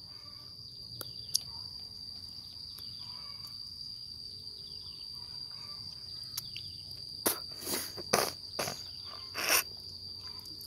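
Insects trilling outdoors as a steady high-pitched drone. A handful of short, sharp, louder noises break in between about seven and nine and a half seconds in.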